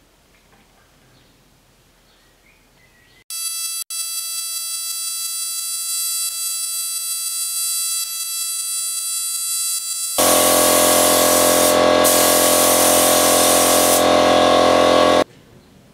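Quiet room tone, then about three seconds in a gravity-fed spray gun starts spraying: a steady hiss with a whistling tone over it. About ten seconds in, a much louder, deeper steady drone with a low hum joins, and it all cuts off abruptly near the end.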